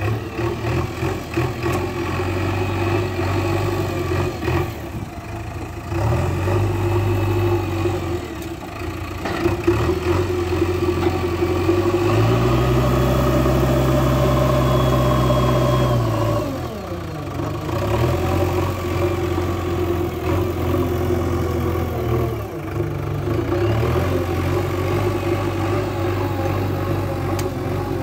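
JCB 3DX backhoe loader's four-cylinder diesel engine working, its revs rising and falling. Near the middle it is held steady at higher revs for about four seconds, then the revs fall away.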